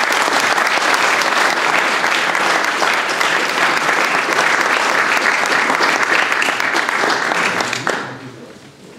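An audience applauding: a steady, dense round of clapping that dies away near the end.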